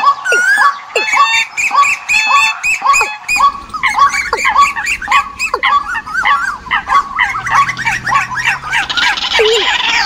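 Recorded bird lure calls, several calls layered together: short pitched calls repeat about twice a second, then about three seconds in a denser chorus of overlapping calls joins in.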